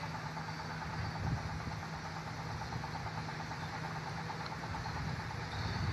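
An engine running steadily, a constant hum with a regular fast pulse.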